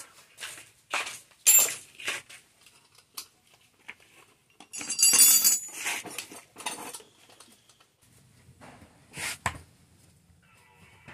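A metal tool clinking, knocking and scraping against a scooter's cast alloy wheel rim while the tyre is worked off. The knocks are irregular, with the loudest, ringing cluster about five seconds in.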